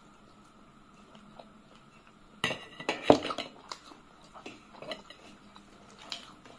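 Metal dishes clattering: a small metal bowl set down among metal plates, a quick cluster of clinks and knocks about two and a half seconds in. Fainter clicks of fingers working rice on a metal plate follow.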